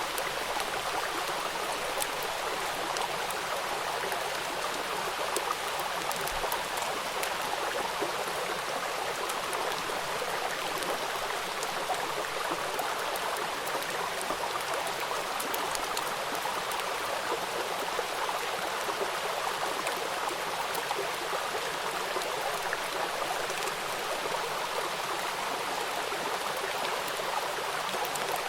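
Steady rain falling: an even hiss of water with scattered fine ticks of individual drops.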